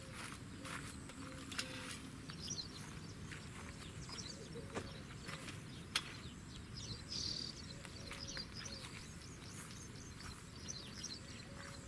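Small birds chirping in the background, with scattered light clicks and knocks from a folding gazebo's metal frame being handled. The loudest knock comes about six seconds in.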